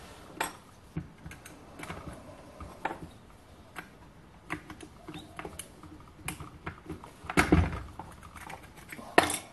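Light metal clicks and taps as a drill arbor, its nut and a flat spanner are handled on a wooden bench and the arbor is fitted into a drill chuck, with a heavier knock about three-quarters of the way through.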